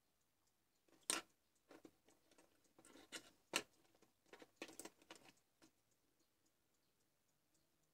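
Faint handling sounds: a scatter of small taps, clicks and scrapes as multimeter probes and a small charger circuit board are moved and repositioned, the sharpest about a second in and again in the middle, stopping a couple of seconds before the end.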